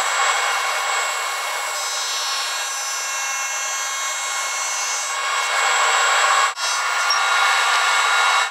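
Table saw cutting a curved maple jaw piece held in a clamped sled: a loud, steady sawing noise with a whine of several steady tones. It breaks off for an instant about six and a half seconds in, then cuts off suddenly at the end.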